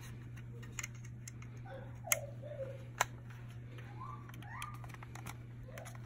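Small plastic clicks from handling the back of a First Alert FG250A smoke alarm and its plastic locking pin: two sharp clicks about a second apart, with a few fainter ones, over a steady low hum.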